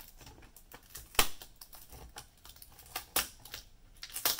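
Plastic screen bezel of a Dell 3180 Chromebook being worked free of the lid by hand: scattered sharp plastic clicks and snaps, the loudest a little over a second in, another about three seconds in and a few more near the end.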